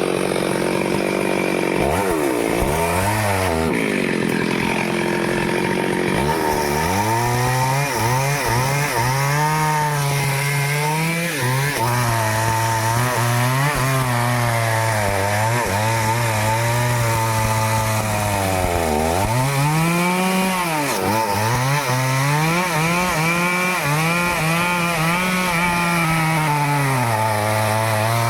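Stihl two-stroke chainsaw running at high revs while cutting teak wood. The engine note repeatedly sags and recovers as the chain loads up in the cut, with a sharp drop and rise in revs a couple of seconds in.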